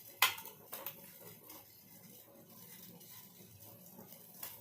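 Kitchen handling at a cooking pot as bay leaves and tulsi are added to the kadha: a sharp click about a quarter of a second in, a smaller one soon after, and a light one near the end, over a faint steady background.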